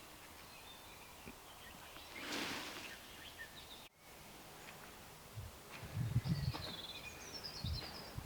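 Woodland outdoor ambience: faint bird calls and chirps over a low background hiss, with a brief rush of noise about two seconds in and a few low thumps in the second half.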